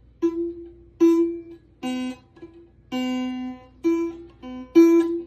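Acoustic guitar strings plucked one at a time by a cat: about eight single notes at uneven intervals, each ringing briefly before it fades or is cut short, mostly the same note with now and then a lower one.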